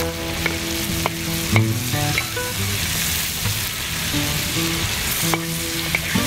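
Food sizzling as it fries in a pan outdoors, with a few sharp clinks of a utensil against the pan.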